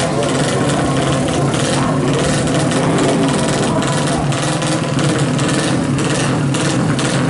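Honda Supra drag bike's four-stroke single, bored up to 200 cc with a big carburettor, running loud and mostly steady near idle between blips of the throttle.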